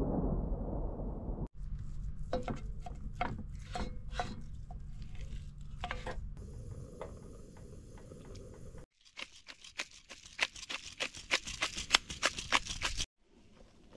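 Outdoor cooking sounds in short cut-together clips. A low rumble of thunder and rain at the start cuts off abruptly. Scattered clinks and knocks of cooking utensils follow, then dense rapid crackling from about nine seconds in.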